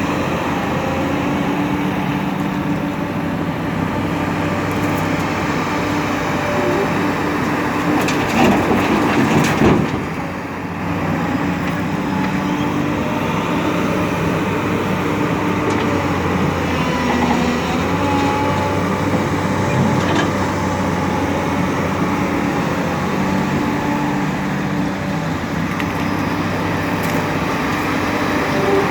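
Excavator engine running steadily at working revs, with a louder crunching, splintering burst about eight to ten seconds in.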